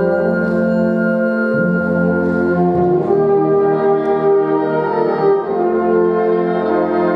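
Music: long, sustained chords of several held notes, shifting to new chords a few times.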